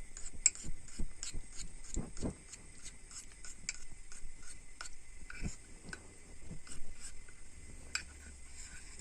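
A metal spoon clicking and scraping against a glass container: a run of light, irregular clicks, two or three a second, with a few duller knocks in the first couple of seconds and again about five seconds in.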